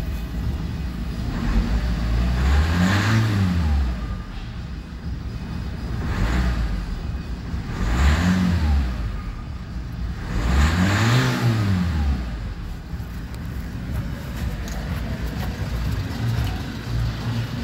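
LDV G10's 1.9-litre turbo-diesel engine idling, then blipped several times, each rev climbing and falling back to idle. It is an engine test on a wrecked van, and the engine tested good.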